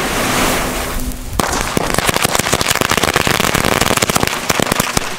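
Firecracker chain going off: a hissing lead-in, then from about a second and a half in a rapid, unbroken string of sharp bangs.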